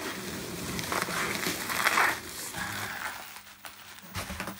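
Polystyrene packing peanuts rustling as hands dig through them, with bubble wrap crinkling as a large wrapped item is lifted out. The rustling is loudest about a second or two in and dies away toward the end.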